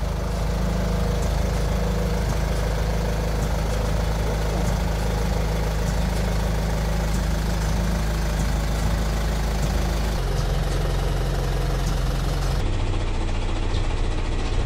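Kia Sportage R's engine running at low speed, a steady low hum as the car creeps forward; the sound changes abruptly near the end.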